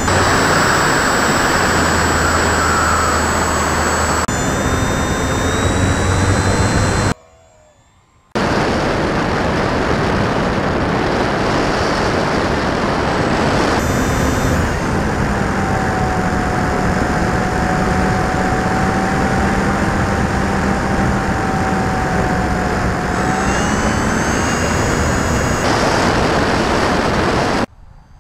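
Onboard-camera recording of an FMS Cessna 182 RC model plane taking off and flying: a loud, steady rush of wind and the electric motor and propeller, with a thin high whine over it. The sound cuts out for about a second some seven seconds in, and drops away just before the end.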